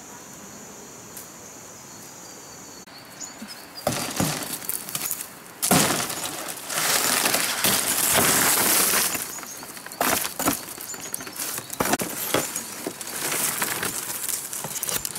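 Dry fan-palm leaves crackling and rustling loudly as they are handled, in irregular crisp bursts that begin about four seconds in. Before that, a thin steady insect buzz over quiet forest background, which stops about three seconds in.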